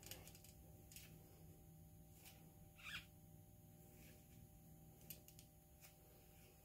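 Near silence, with a few faint clicks and light metal handling noises as the parts of a small 3-ounce grease gun are screwed together by hand. The clearest click comes about three seconds in.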